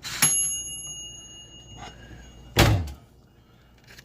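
A toaster oven's timer bell dings once and rings on for a couple of seconds. About two-thirds of the way in, the oven door drops open with a loud metal clunk.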